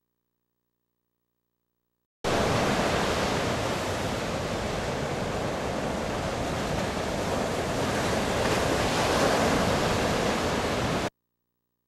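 Ocean surf with wind on the microphone: a steady rushing noise that starts abruptly about two seconds in and cuts off just as abruptly near the end.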